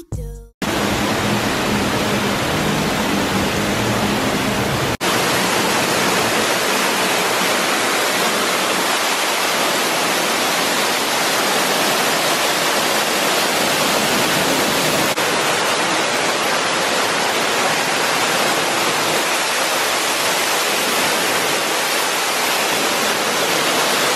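A loud, steady rushing hiss with no pitch or rhythm, broken by a brief dropout about five seconds in.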